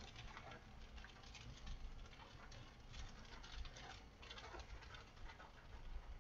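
Faint, irregular patter of raindrops ticking on a moving car, over the low drone of the car on the road.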